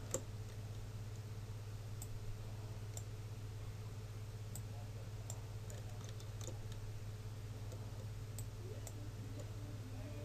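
Scattered computer mouse clicks, about ten at irregular intervals, over a steady low electrical hum.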